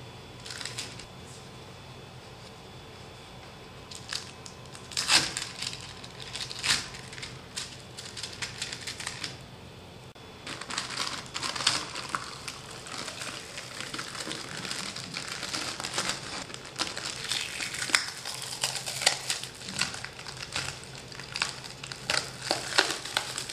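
Clear adhesive-backed plastic print-surface sheet being peeled off a 3D printer's aluminium bed and crumpled by hand, crinkling and crackling in scattered bursts at first and almost continuously from about ten seconds in.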